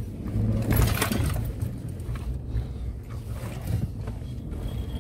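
Engine and road noise inside a pickup truck's cab while driving: a steady low rumble under a hiss of tyres and air, with a brief louder rush about a second in.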